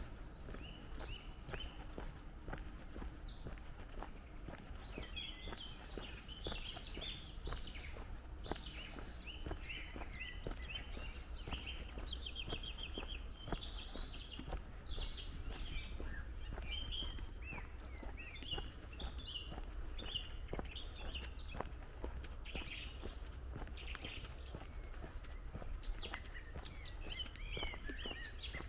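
Songbirds chirping and singing throughout, with footsteps on gravel and a steady low rumble underneath.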